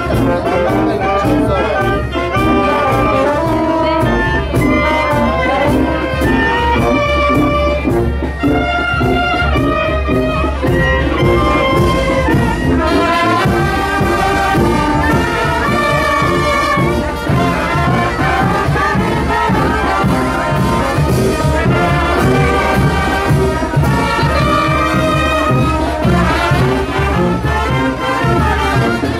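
Live brass band with trumpets and trombones playing a son de chinelo, the lively dance tune for chinelo dancers, over a steady drum beat.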